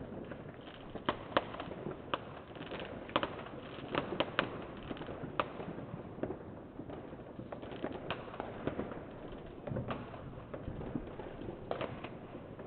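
Distant New Year's fireworks and firecrackers: scattered bangs and pops, irregular and sometimes several in quick succession, over a steady background hiss.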